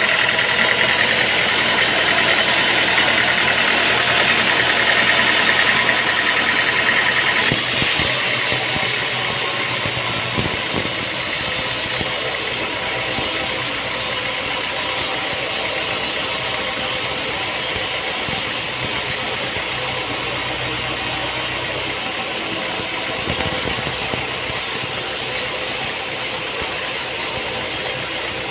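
Sawmill machinery running steadily. A high whine stops about seven seconds in, and a steady mechanical hum carries on.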